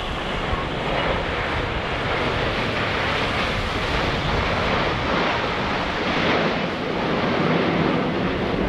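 Formation of nine Canadair CT-114 Tutor single-turbojet trainers flying overhead: a steady jet rush.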